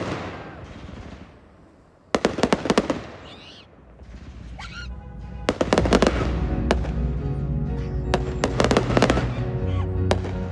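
Fireworks going off in clusters of sharp bangs and crackles: one burst right at the start, another about two seconds in, then more from about five and a half seconds in over music with held notes.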